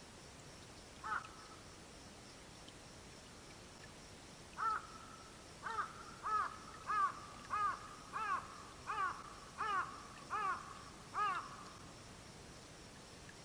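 An owl calling at night: a single call, then after a pause a run of about ten repeated hoarse notes at roughly one and a half a second, stopping near the end.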